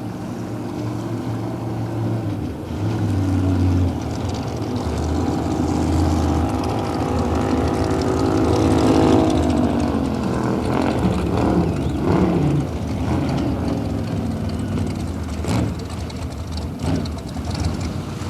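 Racing boat engine passing: it grows louder to a peak about halfway through, then falls in pitch as it goes away. A couple of sharp knocks come near the end.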